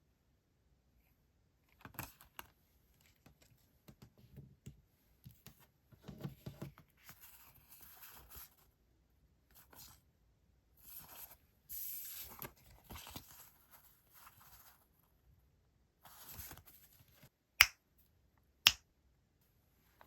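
Paper and stationery packaging rustling and crinkling as it is handled, in short scattered bursts, with two sharp, louder clicks near the end.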